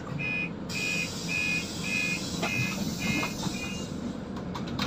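Door-warning beeper of a Scania Citywide CNG city bus: a short high-pitched beep about twice a second, seven times, over the steady hum of the idling bus. A few sharp clicks come near the end.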